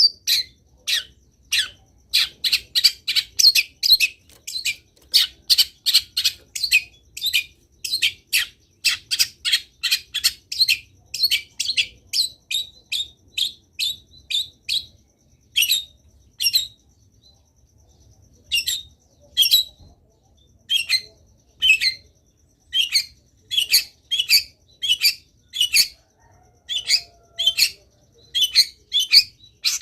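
Long-tailed shrike singing a fast run of short, harsh chattering notes, about three or four a second, with a short break a little past halfway.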